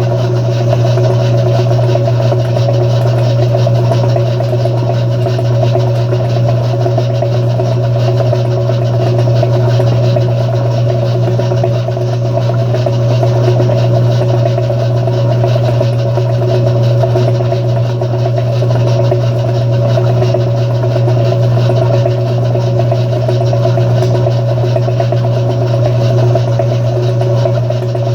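Brastemp Luxo washing machine running its agitation cycle: a loud, steady motor hum with a constant churning drone.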